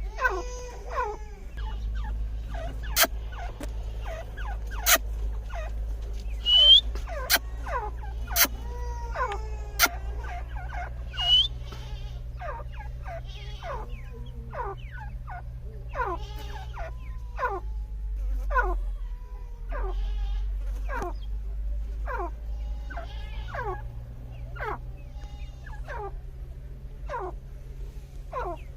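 A family of teetar (francolins) calling: a continuous series of short notes, each sliding steeply down in pitch, about one a second and overlapping. Several sharp clicks sound in the first half, and a steady low hum runs underneath.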